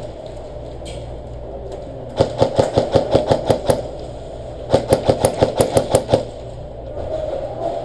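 An airsoft gun firing two rapid strings of shots, about ten each, the second starting about a second after the first stops.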